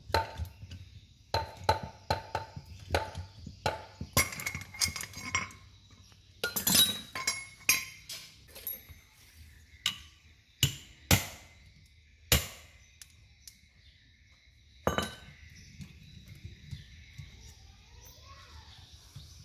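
Tools knocking and clinking on the metal parts of a 24-volt truck alternator: quick runs of sharp taps that ring briefly, followed by a few louder single strikes about halfway through, then quieter.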